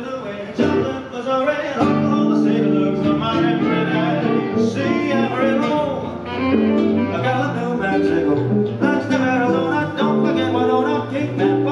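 Music: instruments playing with a singing voice, loud and unbroken.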